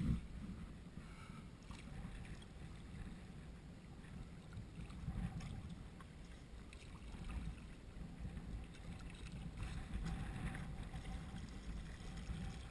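Kayak paddle strokes dipping and splashing in calm sea water, with wind buffeting the microphone in a low rumble.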